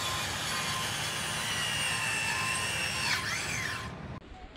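Electric tool motor running with a steady high whine over a rushing noise. About three seconds in, the pitch dips and rises once, then the sound stops.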